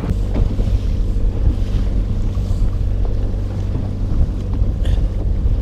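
Boat's outboard motor running steadily under way, a low engine drone, with heavy wind noise on the microphone and water rushing past the hull.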